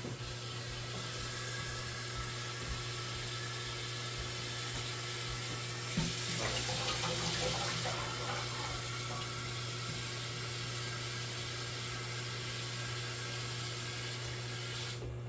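Water running steadily into a chemical sprayer's tank as it is filled, stopping suddenly near the end. A single knock about six seconds in.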